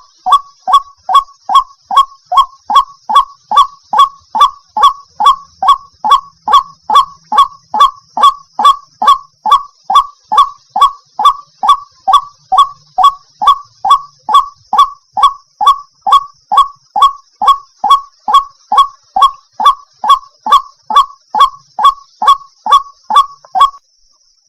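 White-breasted waterhen (ruak-ruak) calling, a fast steady run of the same harsh note repeated about twice a second over a faint high hiss, stopping shortly before the end. The call is offered as a female calling a male.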